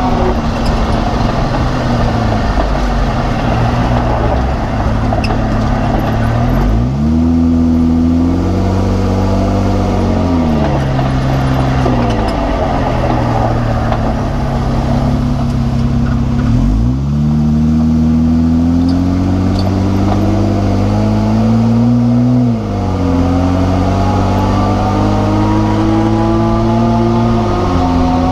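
Jeep Wrangler JK driving: the engine note rises and falls several times as it speeds up and slows down. Over it runs a higher whine whose pitch climbs with road speed, which the owner thinks comes from the rear differential.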